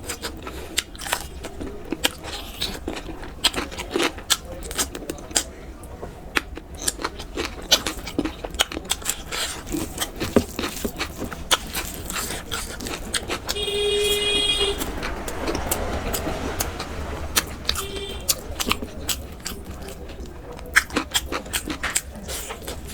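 Close-miked eating sounds: wet mouth clicks and smacks of chewing, coming in quick irregular bursts. About halfway through a vehicle horn sounds for a second or so, with a shorter honk a few seconds later.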